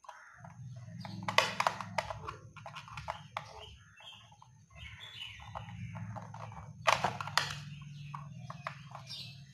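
Screwdriver and copper wire being worked at a switch board's brass screw terminals: a few sharp scrapes and clicks, loudest about a second and a half in and again about seven seconds in, over a steady low hum.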